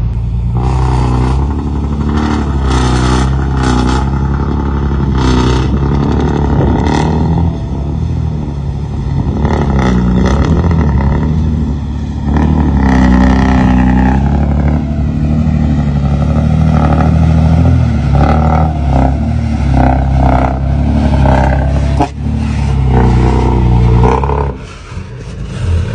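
Diesel engine of a loaded dump truck running under load, its pitch rising and falling as it revs while the truck pulls across a dirt site.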